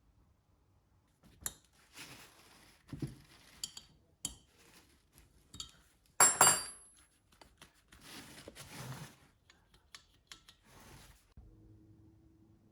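Metal tools and parts clinking, rattling and scraping against each other on a hard surface, with one loud clank that rings briefly about six seconds in.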